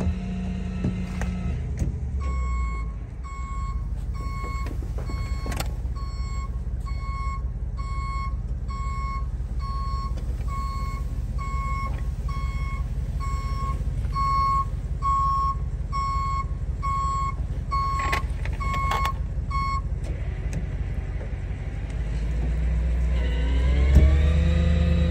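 Dodge Ram 5500 wrecker reversing: its backup alarm beeps about once a second over the steady engine rumble, then stops. Near the end the engine revs up and a clunk sounds as the wheel-lift comes under the car.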